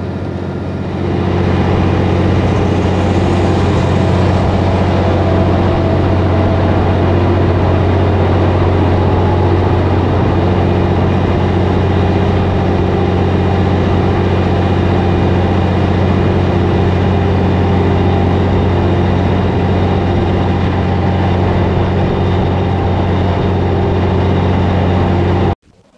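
Cabover Peterbilt semi-truck's diesel engine droning steadily under way, heard from inside the cab along with road noise. It gets louder about a second in and cuts off suddenly near the end.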